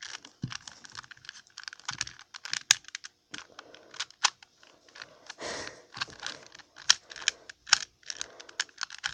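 New 2x2x2 Rubik's Cube being turned by hand: irregular plastic clicks and clacks as its layers snap round, with corner cutting being tried.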